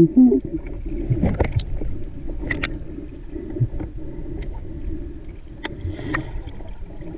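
Muffled underwater sound picked up by a camera below the surface: a steady low water rumble with a short gurgle just after the start and a few scattered sharp clicks and knocks.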